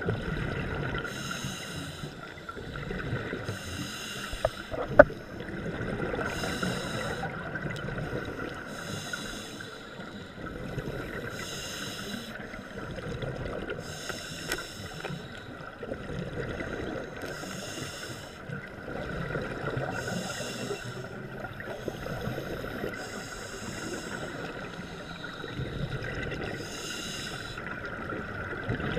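Scuba regulator breathing underwater: a burst of exhaled bubbles every two to three seconds over a low watery rumble, with one sharp click about five seconds in.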